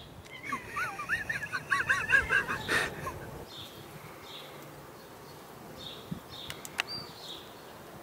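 A bird twittering in a quick run of short chirps for about two and a half seconds. Fainter high chirps repeat after that, with a few light clicks near the end.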